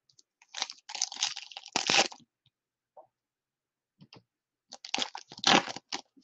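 Shiny foil wrapper of a pack of baseball cards crinkling and tearing as it is ripped open, in two bouts of crackling.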